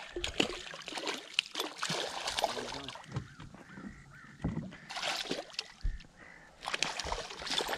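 Hooked fish thrashing and splashing at the water's surface beside the boat, in several irregular bursts.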